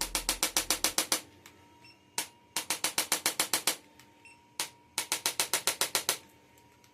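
Three quick runs of sharp clicks, about ten clicks a second and about a second per run, with a few single clicks between them.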